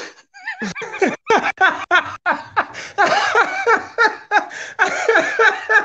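Two men laughing hard together, starting about half a second in, in rapid overlapping bursts of laughter.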